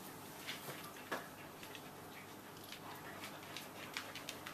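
Light, irregular clicking of pet claws on a vinyl floor as a cat and a dog walk about; faint, uneven taps a fraction of a second apart.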